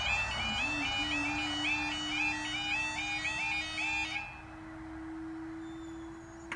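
Level crossing's two-tone warbling alarm sounding until about four seconds in, when it stops. A steady hum from the road barrier's lifting mechanism starts about half a second in and runs on as the boom rises, cutting off at the end.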